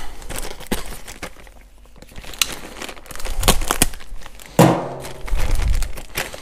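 Plastic parts packaging crinkling and crackling as it is opened by hand, with many scattered sharp crackles and a few dull handling thumps.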